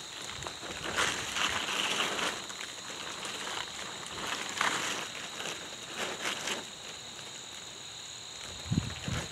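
Footsteps and scuffing on dry dirt as someone moves about, over a steady high-pitched insect drone. Two dull thumps come near the end.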